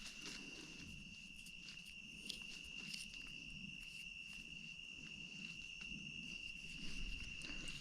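Steady, high-pitched insect drone, typical of a cricket or katydid chorus, with faint scattered ticks and rustles in the brush.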